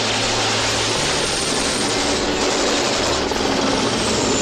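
Helicopter turbine and rotor noise from a film soundtrack, loud and steady.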